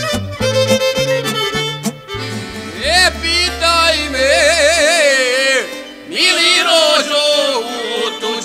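Instrumental break in a Bosnian izvorna folk song: a violin plays the melody with wide vibrato, held notes from about three seconds in, over a stepping bass line. The violin pauses briefly near six seconds and then takes up another phrase.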